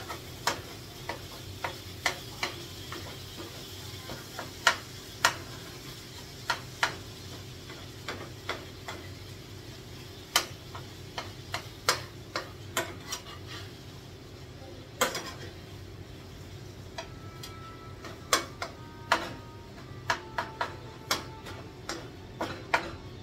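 A utensil knocking and scraping against a pot at irregular intervals as ground turkey is stirred and broken up, over a low steady sizzle.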